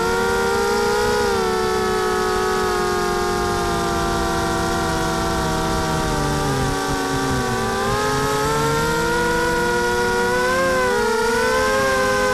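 Whine of a carbon-fibre Mini H quadcopter's four T-Motor 2206 brushless motors spinning Gemfan 5030 two-blade props, heard from the onboard camera in flight over a steady rush of air. The several motor pitches glide separately with the throttle, sinking slowly to their lowest near eight seconds in, then climbing and weaving again around ten to eleven seconds.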